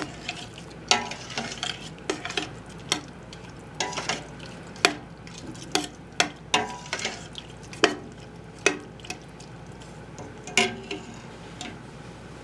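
Metal spoon stirring a thick jambalaya in a stainless steel stock pot, clinking sharply against the pot's sides and bottom at irregular intervals, over the soft steady sizzle of the pot cooking. The clinks stop near the end as the spoon is left in the pot.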